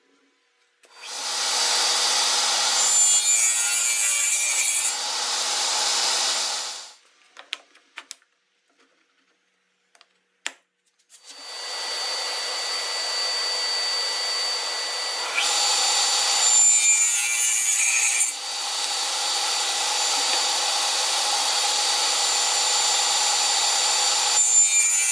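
DeWalt radial arm saw running with a steady high whine, its blade cutting half-inch Baltic birch plywood at a 30-degree angle, with a louder rasp each time the teeth bite into the wood. The saw runs down and stops after the first cut, leaving a few light knocks. It starts again about 11 seconds in and makes two more cuts, the last near the end.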